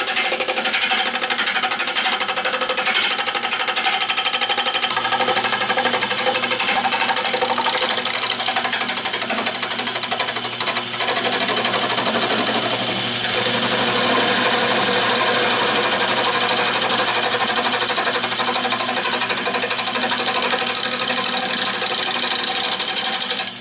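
Nova 16/24 wood lathe running with a tool cutting into a spinning oak bowl blank: a steady motor hum under a continuous noisy cutting sound. A deeper hum joins about five seconds in, and it all cuts off at the very end.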